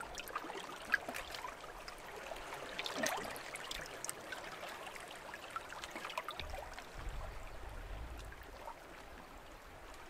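Shallow seawater trickling between boulders and pebbles at the shoreline, a steady patter of small gurgles and drips.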